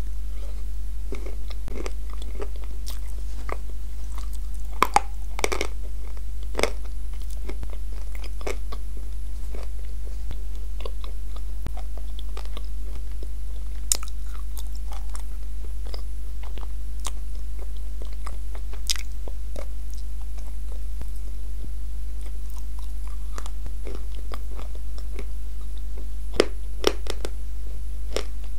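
Close-miked biting and slow chewing of crunchy pieces of edible clay coated in a wet clay paste: scattered sharp crunches and moist mouth clicks, over a steady low hum.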